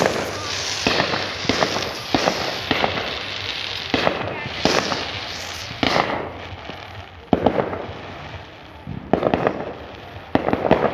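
Fireworks going off in quick succession: a run of sharp bangs over continuous crackling.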